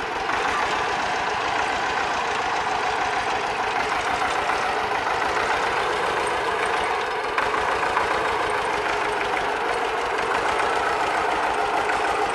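Vladimirets T-25 tractor's two-cylinder air-cooled diesel running steadily with an even chugging beat.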